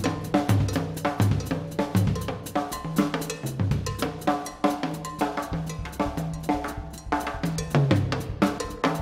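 Rock drum kit played fast: a dense run of tom-tom strokes with cymbal hits, several strokes a second, many drum hits ringing briefly with a pitch.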